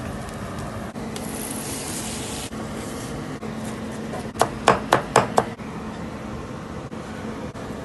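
Knife chopping grilled onions on a cutting board: a run of about five quick, loud strikes around the middle, over a steady background hiss.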